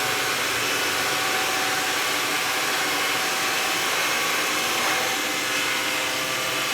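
Xiaomi Mi Robot Vacuum cleaning along a wall edge: its suction fan and brushes run in a steady whir with a faint hum.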